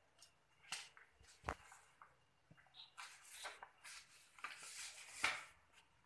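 Sheet of origami paper rustling and crackling as hands fold and crease it against a table. It comes in short irregular bursts and sharp crackles, thickest in the second half, with the sharpest one near the end.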